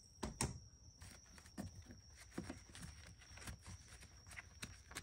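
Scattered light clicks, taps and rustles of handling, a dozen or so at uneven intervals, over a faint steady high whine.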